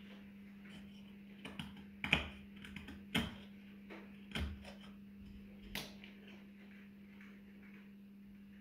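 Knife paring wood from a ukulele neck by hand: a handful of short scraping cuts and clicks in the first six seconds, the loudest about two and three seconds in, then only a steady low hum. The blade is blunt and needs a sharpen.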